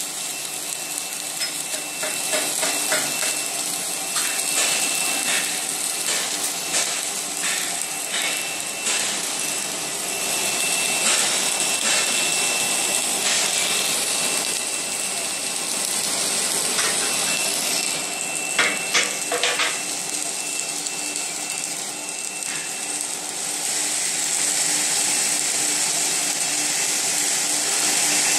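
Automatic submerged arc welding carriage running along a steel main beam: a steady hiss with a faint constant high whine and low hum, broken by scattered clicks and metallic knocks, a cluster of them near the middle. The whine stops a few seconds before the end.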